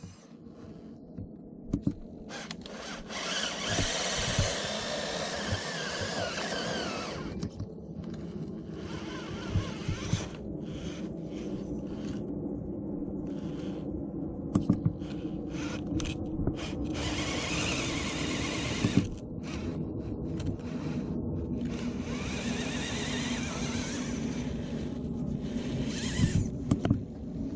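Axial Capra RC rock crawler's electric motor and geared drivetrain whining as it creeps up a rock, rising and falling in pitch with the throttle. Now and then there are sharp clicks and knocks as the tyres and chassis hit the rock.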